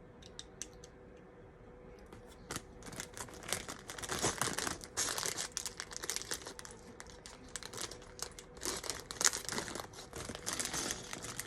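Plastic bags of Lego pieces crinkling as they are handled and rummaged through. A few light clicks come first, and the crinkling starts about two and a half seconds in and keeps going.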